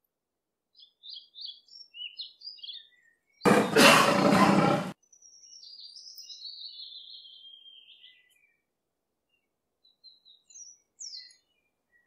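Birds chirping, then a single lion roar about three and a half seconds in, lasting about a second and a half and the loudest sound here. A long bird call falling in pitch follows, then more scattered chirps.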